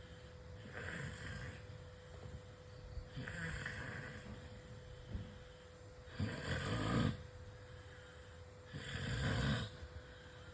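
A person snoring loudly: four snoring breaths about every two and a half to three seconds, the last two the loudest and most rumbling.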